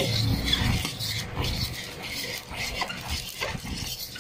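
A metal fork stirring and scraping against a bowl, working an egg into dry pancake mix, with irregular light clicks as the tines hit the bowl.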